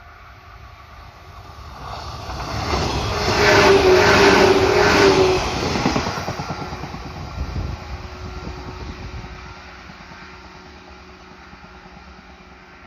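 A train passing at the level crossing: it builds over about two seconds, is loudest for about two seconds with wheel and rail noise and a steady tone, then fades away.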